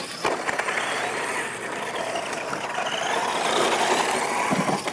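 Radio-controlled monster trucks racing across a dirt track: their motors running at full throttle and tyres churning on loose dirt, with a few sharp knocks as trucks land off wooden ramps. The noise swells about three to four seconds in.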